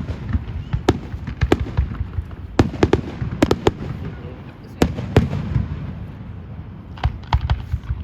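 A fireworks display: a string of sharp bangs and pops at irregular intervals, some in quick clusters, over a low rumble of echoing booms.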